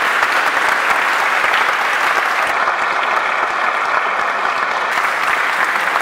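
A church congregation of wedding guests applauding, many hands clapping steadily throughout.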